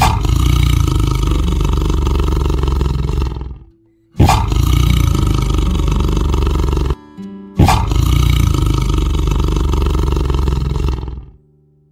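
Tiger roaring three times. Each roar lasts about three and a half seconds, starts suddenly and is loud and deep, with short pauses between them.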